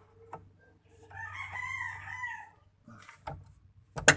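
A rooster crowing once, about a second in. A few short metallic clicks follow, with a sharp clank near the end.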